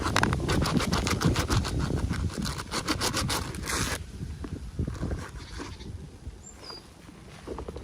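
Rapid scraping and crinkling of toy packaging being handled and opened, which stops about four seconds in. Two faint high chirps follow near the end.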